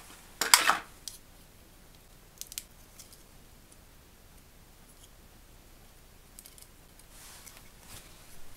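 Clear plastic blister packaging crackling sharply as a small toy lamp is pulled out of it, about half a second in, then a few faint clicks and a soft rustle of the plastic near the end.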